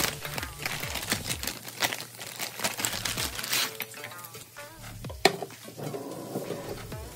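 Handling of a plastic bread bag and paper plate: a run of quick crinkles and clicks, then one sharp click about five seconds in, over light background music.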